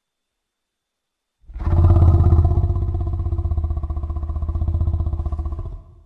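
Anguirus kaiju roar sound effect: one long, low, rapidly pulsing growl that starts about a second and a half in and fades out near the end.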